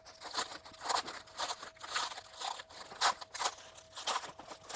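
Plastic packaging crinkling and rustling in uneven handfuls as a car weather shield is unwrapped.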